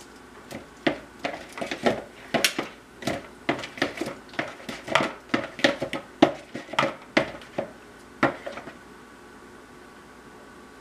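Metal kitchen tongs clicking and clinking against a sauce bowl and a wire cooling rack on a baking sheet as chicken drumsticks are picked up and turned in sauce. The clinks are irregular, a few a second, and stop about nine seconds in.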